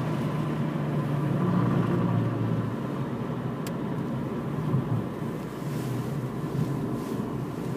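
Car cabin noise while driving along at road speed: a steady low engine and tyre rumble with a faint steady whine, and one light tick about three and a half seconds in.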